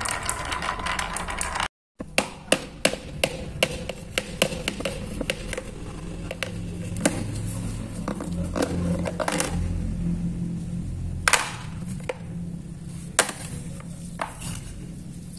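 Glass marbles clattering quickly down a wooden pegboard. After a brief break comes a series of sharp separate clicks and knocks, quick at first and then sparser, with a low rumble in the middle stretch and two louder knocks near the end.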